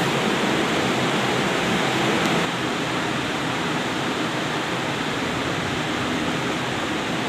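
Heavy rain pouring down steadily in a dense, even hiss. It becomes slightly softer about two and a half seconds in.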